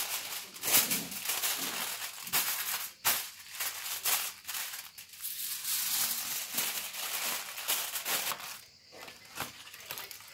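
Aluminium foil crinkling and rustling as it is folded and crimped over a whole fish by hand. The crackling dies down a little before the end.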